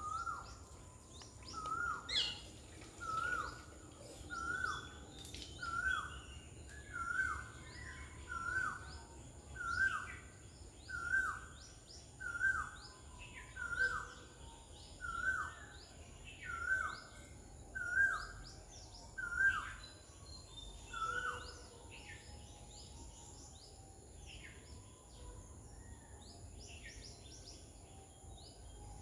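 A short, bird-like call repeated evenly about every 1.3 seconds, each note hooking down in pitch, stopping about 21 seconds in. Fainter high chirps and a steady high whine continue underneath.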